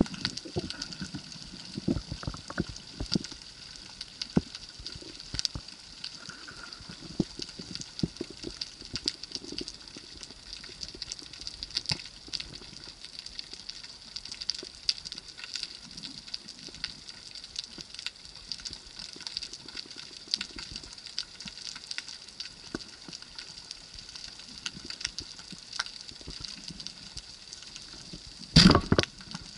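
Underwater ambience through an action camera's housing: a steady high hiss with scattered sharp clicks and crackles. Near the end a sudden loud thump lasting about half a second, a speargun being fired at the fish.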